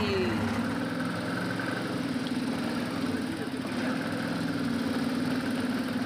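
Off-road buggy (side-by-side) engine idling steadily, freshly started with a turn of the key.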